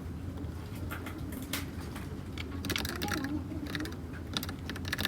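Typing on a Dugard x Thinkway Toucheff mechanical keyboard with red linear switches: scattered keystrokes with two quick runs of typing, one about halfway through and one near the end.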